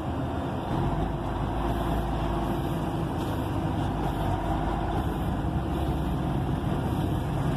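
Truck engine running steadily as the vehicle rolls slowly, heard from inside the cab.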